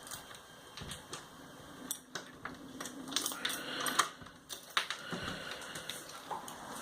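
A back door being quietly unlocked and opened: scattered small clicks and knocks from the handle and lock, with faint rustling.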